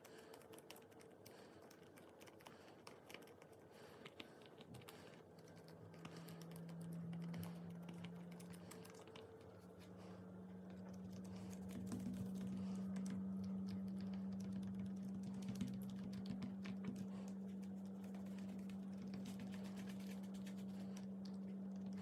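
Slime being pressed and worked by hand, giving many small, rapid clicks and crackles. A steady low hum comes in about five seconds in and gets louder, becoming the loudest sound.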